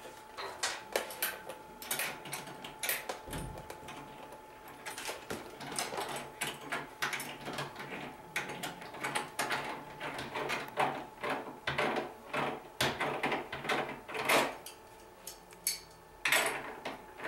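Steel wrench clicking and clinking against the nuts on a sewing machine motor's mounting bolts as they are tightened down, a long run of sharp metallic clicks at about two or three a second.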